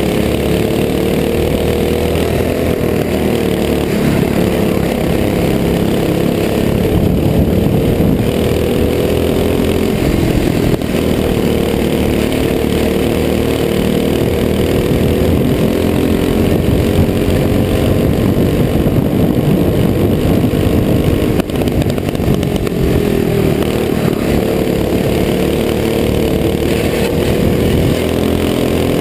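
Box-stock clone kart engine (a single-cylinder four-stroke Honda GX200 clone) running hard, recorded onboard, its note rising and falling in pitch with the throttle through the corners.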